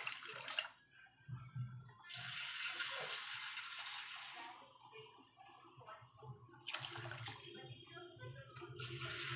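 Water poured into a pan of thin rasam (thili saaru), then the rasam bubbling as it heats. The watery noise comes in bursts, the longest a couple of seconds in.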